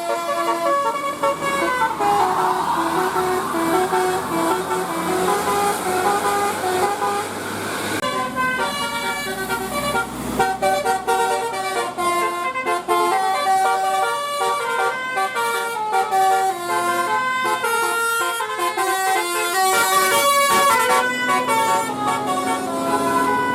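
Basuri multi-tone 'telolet' bus air horn playing tunes, stepping from note to note in a melody. About eight seconds in the sound changes abruptly to a busier, faster run of notes.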